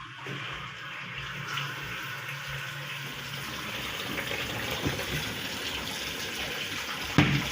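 Water running through a hose pipe into the wash tub of a washing machine as it fills, a steady rushing that swells slightly. A short knock near the end.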